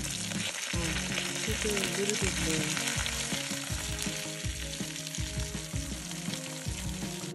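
Salmon with roasted peppers sizzling and crackling in a foil tray on a portable gas grill. The sizzle cuts off suddenly near the end, over faint background music.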